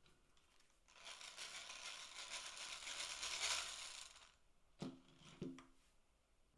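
Antique hand-crank massage tool being cranked: its gearing inside the wooden body whirs with a fast, fine rattle for about three seconds, swelling then stopping. Then two short knocks as the wooden tool is set down on the table.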